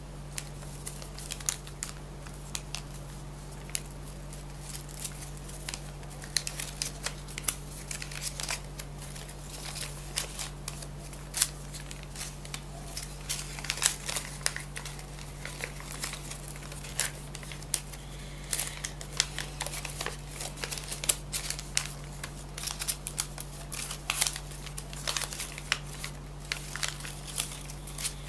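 Sheet paper being handled and folded by hand: irregular crinkles and crisp creasing clicks, over a steady low electrical hum.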